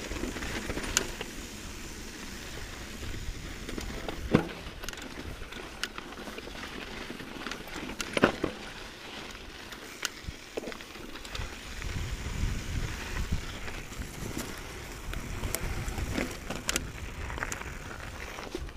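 Mountain bike rolling fast down a dirt and gravel singletrack: a steady noise of tyres on the trail, with scattered rattles and sharp knocks of the bike over rocks, the loudest about four and eight seconds in. Wind rumbles on the microphone in the second half.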